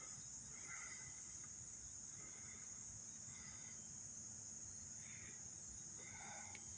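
Steady, high-pitched insect chorus in woodland, faint, with a few faint short sounds scattered through it.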